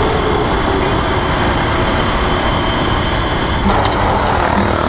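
Lifan KPR 165 motorcycle riding at speed, its single-cylinder engine under a steady rush of wind on the microphone. About three and a half seconds in, the sound grows brighter as other motorbikes come close alongside.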